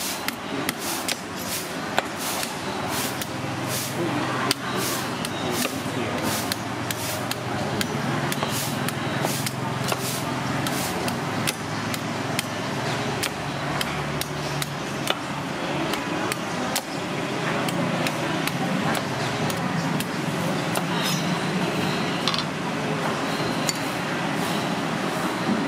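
Long knife chopping into the husk of a young coconut on a wooden chopping block. Quick sharp chops come a few a second and thin out in the second half, over steady street background noise.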